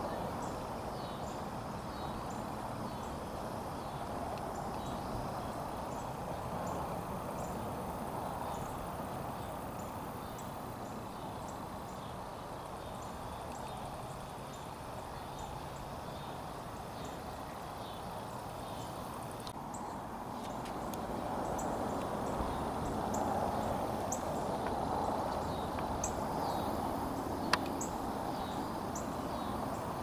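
Steady outdoor rush of shallow river water running over rock ledges, with faint high ticks scattered through it and one sharp click near the end.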